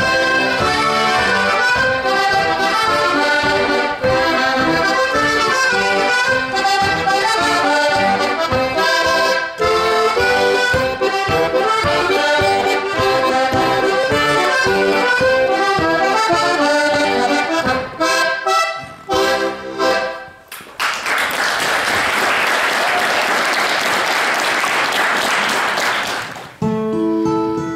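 Solo accordion playing a quick tune with rapidly changing notes, breaking into a few short chords about 18 seconds in. Audience applause follows for about five seconds, and near the end an acoustic guitar starts.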